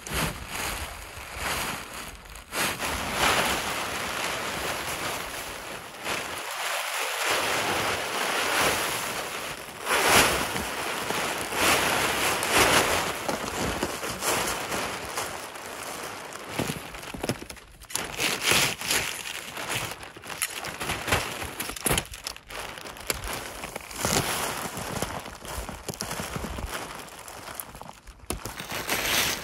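Hot tent fabric rustling and swishing as it is handled, pulled and raised over its poles, in a run of irregular swishes and short scrapes.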